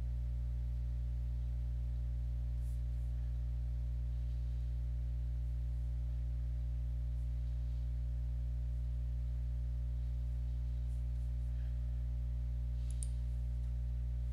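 Steady low electrical hum on the recording microphone, unchanging throughout, with a few faint mouse clicks about 13 seconds in as the screen recorder is brought up to stop.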